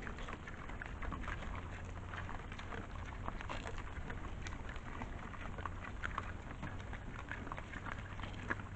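Wild boar and their piglets feeding on the ground: a dense, irregular crackle of crunching, chewing and rooting clicks, over a low steady hum.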